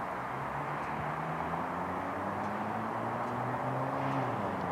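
Steady engine hum over a rushing noise. Its low pitch drifts slowly upward and breaks off near the end.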